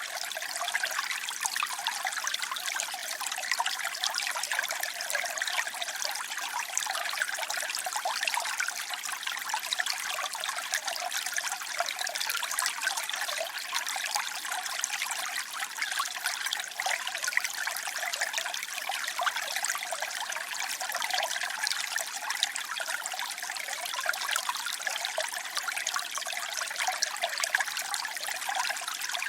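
Running water trickling and splashing steadily: a continuous dense patter of small splashes, bright and hissy, with almost no low rumble.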